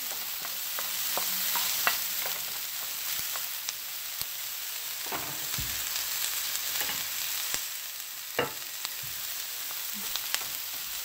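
Sliced onions and diced serrano chile sizzling in hot oil in a frying pan, with a steady hiss. As they are stirred, a utensil clicks against the pan every so often.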